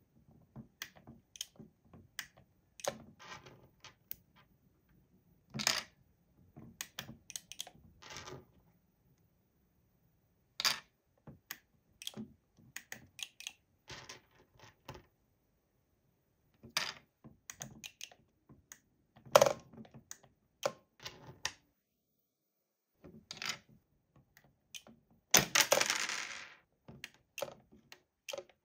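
Small hard plastic bug pieces of a Disney Lion King Pumbaa Pass game clicking and clattering against each other, the table and the plastic Pumbaa figure: scattered sharp clicks, with a longer clatter near the end.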